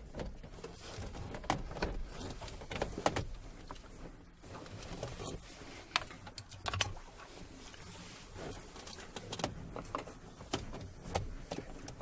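Scattered light clicks, taps and knocks of plastic interior trim being handled and pressed into place while a Land Rover Discovery 2's centre console is refitted, with a few sharper clicks among them.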